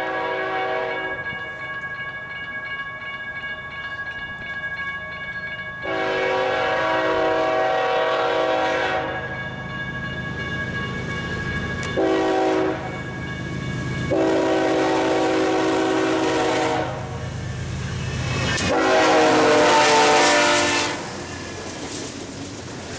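BNSF diesel freight locomotive's multi-chime air horn sounding: a long blast, a short one and another long one, the grade-crossing signal. Near the end the locomotive passes close, with loud engine and wheel noise.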